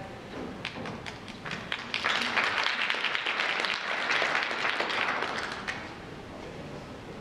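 Audience applauding: a few scattered claps at first, swelling into full applause about two seconds in, then dying away near the end.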